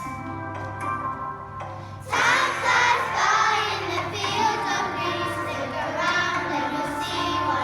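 Worship song with children singing over instrumental backing; after a short instrumental passage, the voices come in louder about two seconds in.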